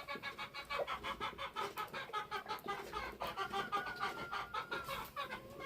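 A domestic chicken clucking in a fast, even run of short calls, about five or six a second, with a longer held note about three seconds in.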